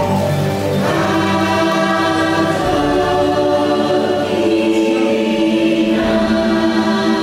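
Choral music from the ride's soundtrack: a choir singing long, held chords, shifting every second or two.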